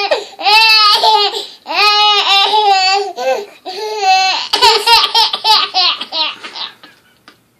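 Baby laughing hard in long, high-pitched peals, several in a row. The last run breaks into quick short bursts of laughter and dies away near the end.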